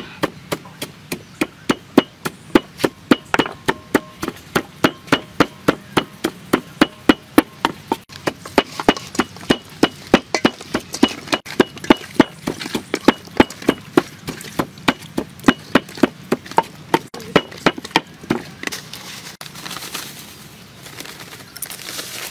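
Sharp, evenly spaced knocks, about three a second, like steady chopping, that stop a few seconds before the end.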